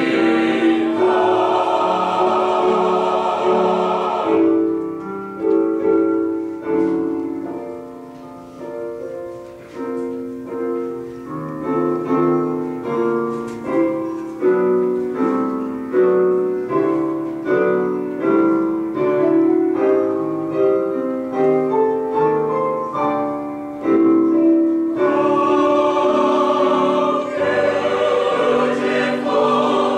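Mixed choir of men and women singing with piano accompaniment. About four seconds in the voices stop and the piano plays an instrumental interlude alone, each note struck and fading, until the choir comes back in about five seconds before the end.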